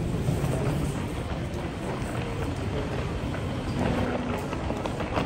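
Steady low rumbling noise with a few faint clicks.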